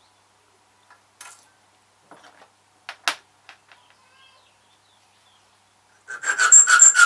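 A few faint handling clicks, then near the end a hand file cutting a key blank with fast, even strokes, about five a second, each with a metallic ring.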